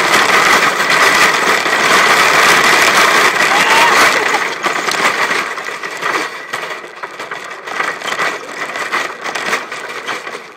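Shopping cart rolling fast over pavement, its wheels and wire basket rattling loudly. About four seconds in, the rattle drops and turns patchy and uneven.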